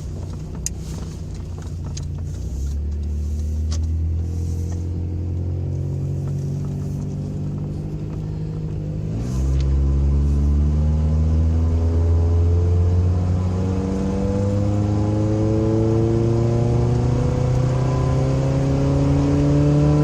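Toyota 4x4 truck engine pulling away and accelerating, its pitch climbing steadily. It drops as the automatic transmission upshifts about nine seconds in and again near fourteen seconds, then climbs again.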